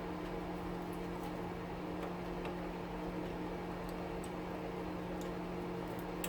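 Steady hum of a stove's fan running, with faint scattered light clicks of a driver bit and small metal parts.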